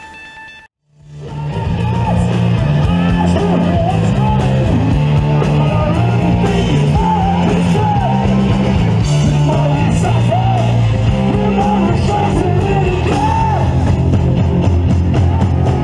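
Live rock band playing: a male singer sings over drums, electric guitar and bass. It starts about a second in, after the earlier electronic music fades out.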